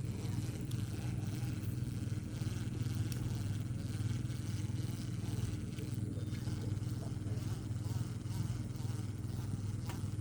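A small engine running steadily nearby, a low even drone, with a few faint ticks over it.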